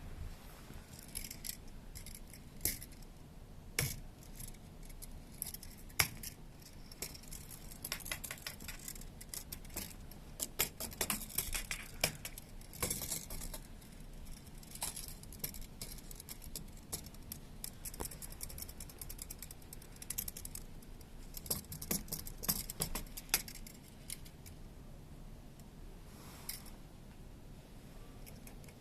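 Kittens moving about: irregular small clicks, taps and rattles, busier in a few clusters.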